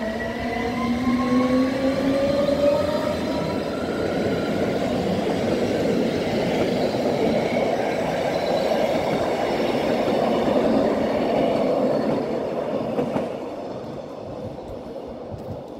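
Pair of Rhaetian Railway ABe 4/4 III electric railcars accelerating away with a train of coaches. The traction equipment's whine rises in pitch over the first few seconds, then the coaches roll past with steady wheel-on-rail clatter and faint high squeal. It fades as the train draws away, from about thirteen seconds in.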